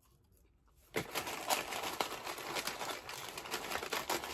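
Paper food wrapping being handled, crinkling and rustling with many small crackles, starting about a second in.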